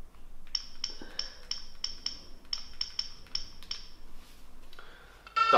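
Mobile phone keypad beeps as a number is dialled: about a dozen short high beeps, roughly three a second with short pauses between groups. A loud steady tone cuts in just at the end.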